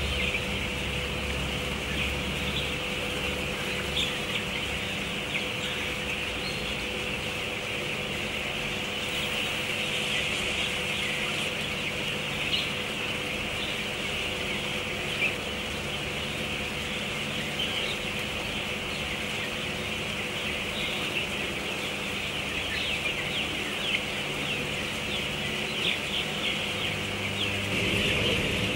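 A large flock of four-to-five-week-old broiler chickens peeping and cheeping continuously, many voices at once, with a few louder single calls standing out, over a steady machine hum.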